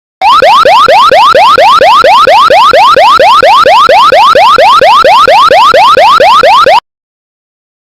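Fire alarm sounders of a 1990s Pertronic F16 conventional fire alarm system in alarm, giving the old pre-2003 evacuation tone: a loud, fast run of rising sweeps, about four a second. The tone stops abruptly about a second before the end.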